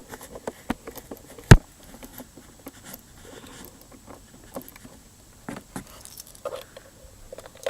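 Scattered small clicks and taps of a metal detector's parts being handled during disassembly, with one sharp knock about a second and a half in.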